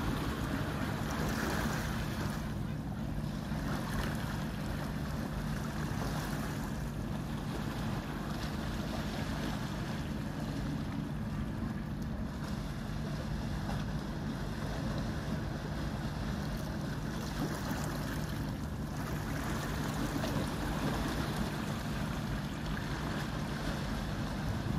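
Steady low drone of a marine engine, with water washing and wind on the microphone.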